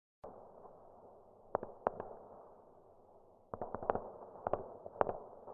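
Faint room noise with scattered small clicks and taps from handling things on a wargaming table: a few taps about a second and a half in, then a quick cluster of clicks from about three and a half seconds on.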